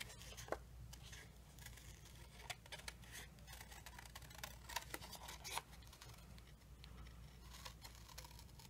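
Small craft scissors (Stampin' Up Paper Snips) faintly snipping through cardstock, in short, irregular cuts.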